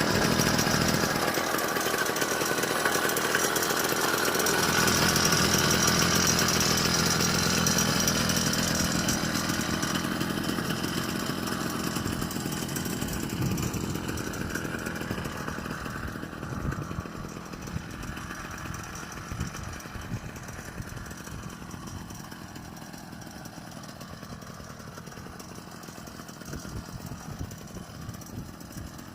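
49cc two-stroke motorized-bicycle engine running with a high buzz, growing steadily fainter over the half minute.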